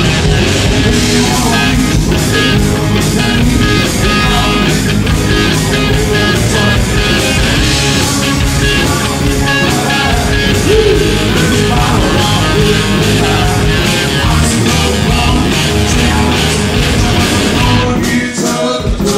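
Southern rock band playing live and loud: distorted electric guitars, bass and drums, with singing.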